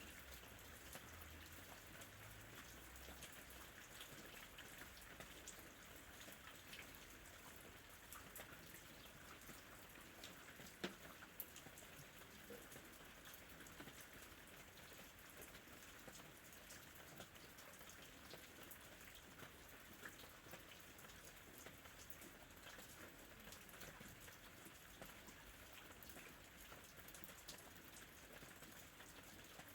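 Faint, steady ambient rain with scattered drop ticks, and two sharper drips about eleven seconds in.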